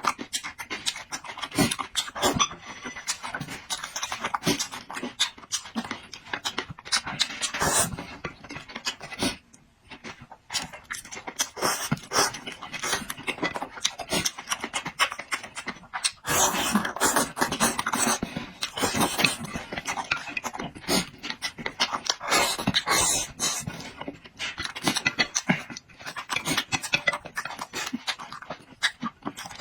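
Dog panting rapidly, with many short wet clicks and smacks of its mouth, pausing briefly about a third of the way in.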